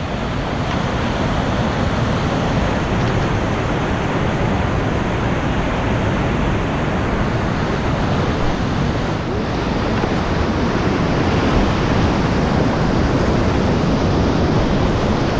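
Steady roar of whitewater rapids as the river pours over and between boulders.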